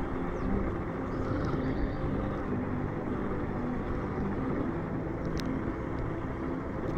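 Electric RC rock-bouncer truck driving on sand: steady motor and drivetrain noise with a constant rumble.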